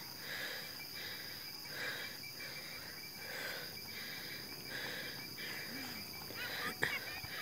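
Night insects chirring steadily at a low level, with a sharp click near the end.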